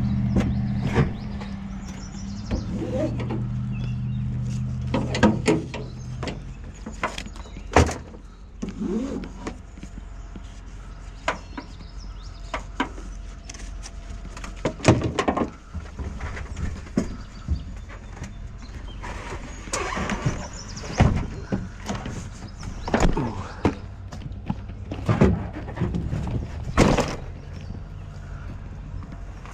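Honda CR125 two-stroke single-cylinder engine idling steadily for the first several seconds, then dropping to a faint low hum, with scattered sharp clicks and knocks through the rest.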